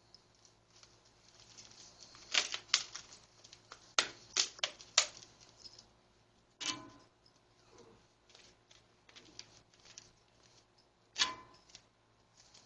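Handling noises from building a model volcano out of a plastic bottle and craft materials. A cluster of sharp clicks and taps comes about two to five seconds in, then single louder taps near the middle and near the end, with fainter small ticks and rustles between them.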